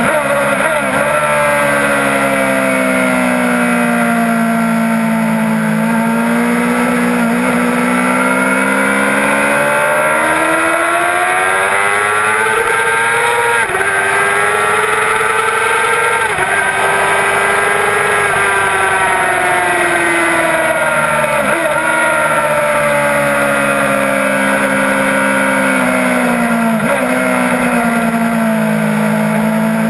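2006 Yamaha R6's 600 cc inline-four engine running hard on track, its pitch climbing and falling as the bike accelerates and slows, broken sharply several times by gear changes, over a steady rush of wind.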